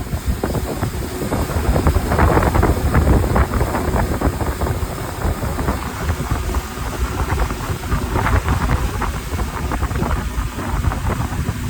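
Wind buffeting the microphone, a heavy, fluttering low rumble.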